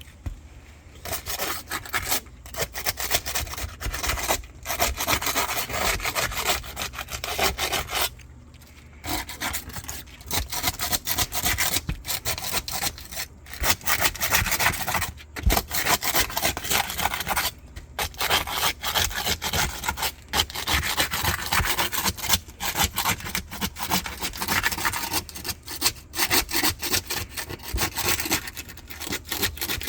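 Rough scraping and rubbing against asphalt roof shingles in rapid strokes, with a couple of short pauses.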